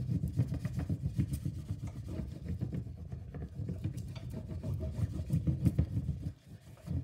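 The back of a spoon rubbed hard and fast over paper on a wax encaustic panel, burnishing a photo transfer: a continuous scraping rub made of quick strokes, with a brief pause near the end.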